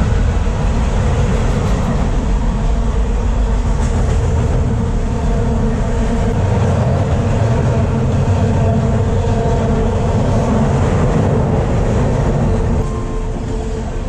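Freight train of covered hopper cars crossing a steel girder railway bridge, heard from beneath the bridge: a loud, steady noise of the cars and wheels running, heaviest in the low end. It eases a little near the end.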